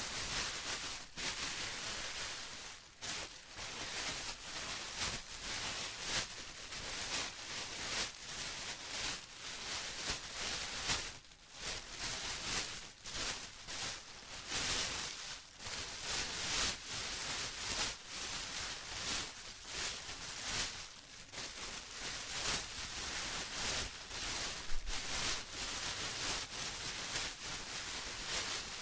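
Plastic rustling and crinkling continuously in uneven, overlapping surges of crackly hiss, with a few brief lulls.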